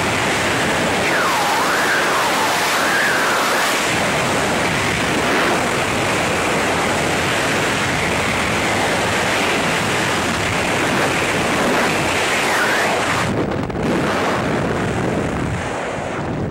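Loud, steady freefall wind buffeting the microphone during a tandem skydive. About thirteen seconds in the high hiss thins out as the parachute opens and the fall slows.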